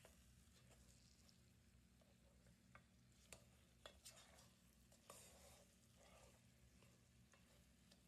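Faint cooking sounds: a utensil stirring food in a pan, with a few light clicks against the pan and a low sizzle.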